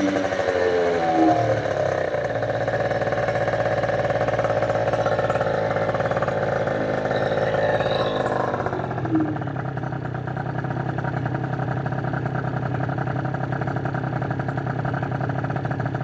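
MBK Booster scooter's tuned 70cc two-stroke Minarelli engine running with the rear wheel spinning free on a stand. It settles from a falling rev into a steady high-revving run, then drops to a lower steady speed about halfway through. The owner judges that the engine could rev harder than its current ignition allows.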